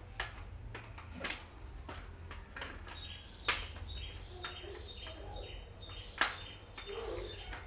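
Sharp clicks and snaps of the stiff plastic instrument-cluster housing of a Toyota Innova being handled and prised apart, four louder ones spaced a second or more apart.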